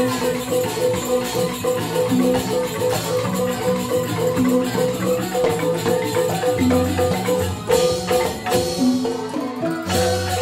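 Balinese joged bumbung gamelan music: bamboo xylophones play a fast, repeating interlocking pattern with percussion underneath.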